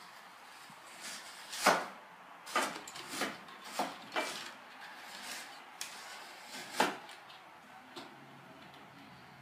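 A kitten's claws scratching and scrabbling on a woven cane chair back as it climbs, heard as a series of short scratchy rasps and clicks, the loudest about two seconds in and another near seven seconds.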